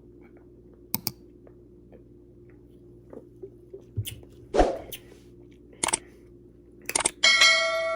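Mouth sounds of a person tasting a soda: sips, a swallow and lip smacks with a few sharp clicks. A short high-pitched note comes near the end.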